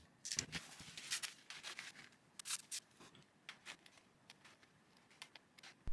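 Faint crinkling of a paper towel and small clicks of handling as a circuit board's micro USB socket is cleaned, mostly in the first three seconds, then only a few faint ticks.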